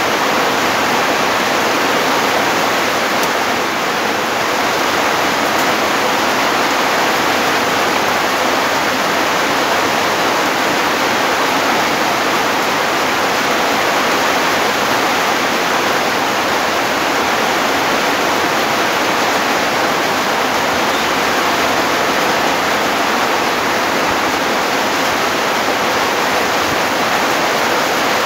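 Heavy rain falling, a loud, steady, even hiss that does not change.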